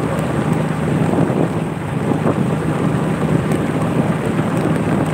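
Steady wind buffeting the microphone while riding along a road, with a vehicle's engine running underneath.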